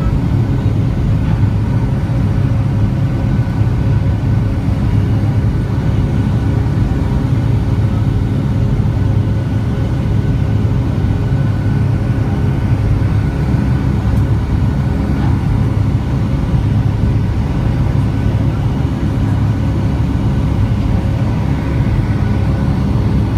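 Steady jet engine drone and airflow heard inside the cabin of a Boeing 757-300 during its climb after takeoff: a loud low rumble with a few steady whining tones over it.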